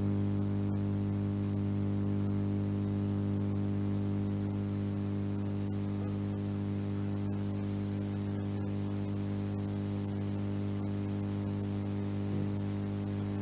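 Steady electrical hum, a low buzz with several overtones that does not change, with a few faint clicks scattered through it.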